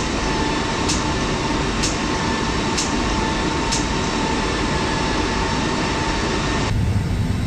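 CFM56-5B jet engine igniter plugs firing during the EEC-commanded ignition test: sharp snaps about once a second, five of them, stopping about four seconds in. Underneath runs a steady hum with a faint whine.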